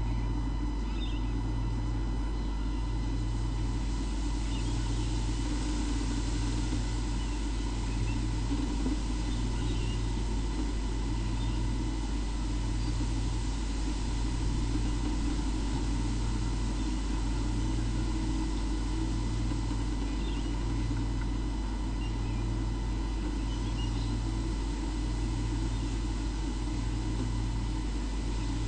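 Steady machine-like hum with a low throb pulsing about every second and a half and a constant thin whine, with a few faint high bird chirps over it.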